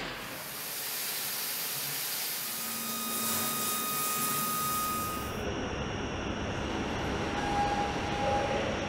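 Water jets spraying a truck cab body in the paint-shop pretreatment line, a loud steady hiss that cuts off abruptly about five seconds in to a lower, steady factory rumble.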